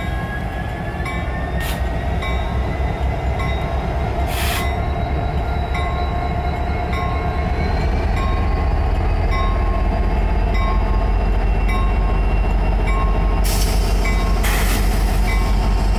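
Illinois Central diesel freight locomotive rolling slowly through a grade crossing: a steady low engine rumble with a whine that rises slowly in pitch. Over it, the crossing's Safetran electronic bell dings evenly, and there are a few short bursts of hiss, the longest near the end.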